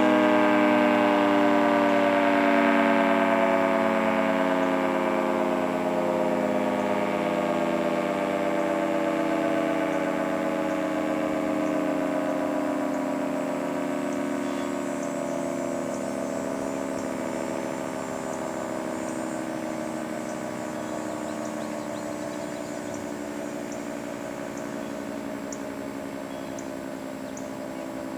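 Federal Signal 2T22 dual-tone tornado siren winding down at the end of its alert: its chord of tones slides slowly and steadily lower in pitch and fades.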